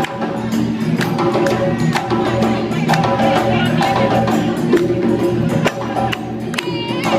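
Senegalese sabar drums playing a fast, dense rhythm of sharp strokes.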